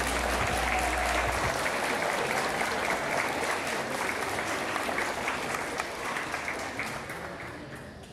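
Crowd applauding: many hands clapping in a dense, steady patter that thins out and fades near the end.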